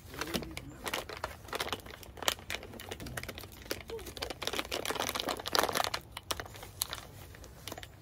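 Irregular crinkling and rustling: a run of quick crackles and rustles that comes and goes.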